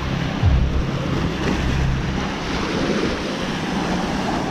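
Small waves washing up on a sandy beach, with wind buffeting the microphone. A low steady drone runs underneath and stops about two seconds in.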